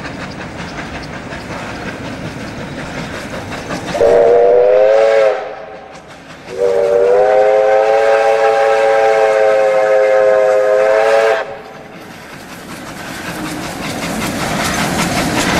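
Steam whistle of an R class 4-6-4 Hudson steam locomotive, several notes sounding together: a short blast about four seconds in, then a long blast of about five seconds. Under it, the steady noise of the double-headed steam train rolling past, growing louder near the end.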